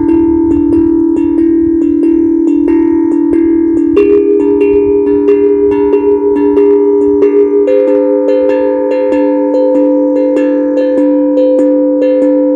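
Steel tongue drum played in quick, even strokes, about three a second, each note ringing on into the next so the tones blend into a sustained metallic hum. A higher note joins about a third of the way in and another higher one about two-thirds in.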